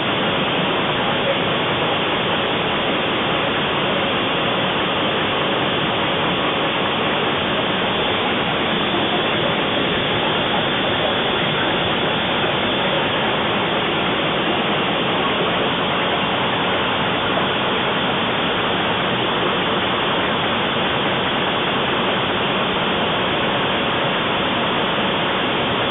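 DGM 850 newspaper web press running, a loud, steady, even wash of machine noise with no distinct beat or change.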